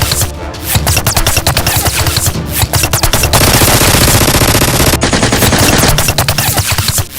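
Rapid automatic gunfire sound effects, long strings of shots fired in quick succession with hardly a break.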